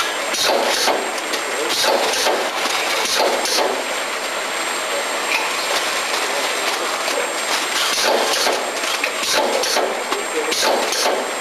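Model 140 cartoning machine with infeed running: a steady mechanical clatter of chain conveyor and moving linkages, with frequent clicks and knocks.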